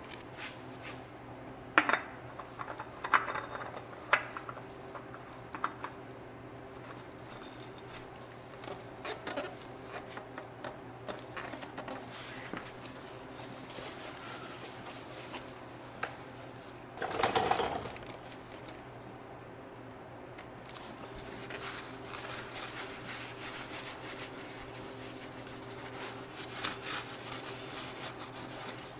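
Scattered metallic clinks, clatters and rubbing of hand tools and parts being handled, with a louder scrape or rustle about seventeen seconds in, over a steady low hum.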